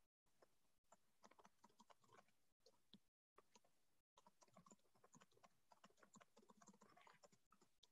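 Very faint computer keyboard typing, irregular runs of light clicks, with the audio cutting out to dead silence several times.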